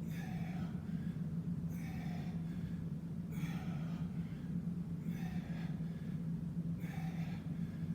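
A man breathing hard during bodyweight squats late in a long workout, with a heavy breath about every second and a half to two seconds, over a steady low hum.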